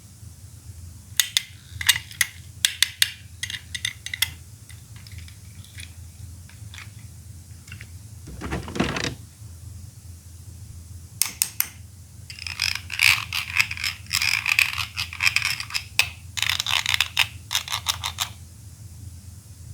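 Plastic toy Poké Balls being handled and clicked: clusters of sharp plastic clicks and snaps, a brief scraping sound about nine seconds in, then a long dense run of clicking and clattering.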